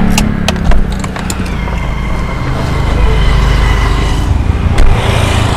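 Clicks and knocks of a Honda Civic's driver door as the driver opens it and gets out, the loudest about a second in, over a steady low rumble in the car. Another sharp knock comes near the end.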